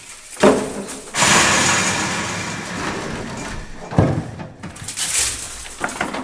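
Metal objects struck and scraped in a large, reverberant factory hall. A sharp metal impact comes first, then a long metal-on-metal scrape that fades over about three seconds. A second hit lands about four seconds in, followed by a shorter scrape and a few light clicks.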